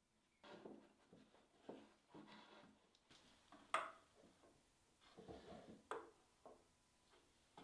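Faint, scattered knocks and scrapes of wooden workpieces being handled on a bench, with one sharper knock about four seconds in.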